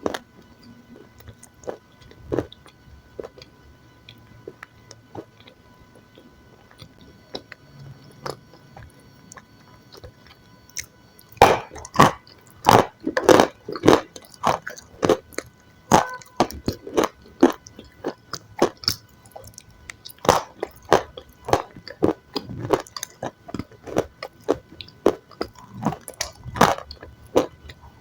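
Close-miked eating: soft, scattered mouth and chewing sounds at first, then from a little over ten seconds in, a dense run of loud crunchy bites and chewing.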